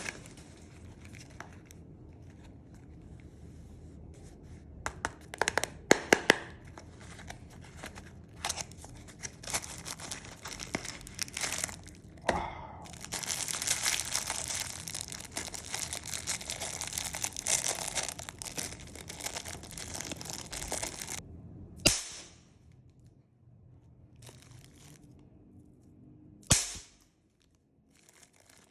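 Small pop-pop crackers (bang snaps) going off in sharp cracks and snaps. Scattered pops give way to a dense stretch of crackling and crinkling paper, then two louder single cracks near the end.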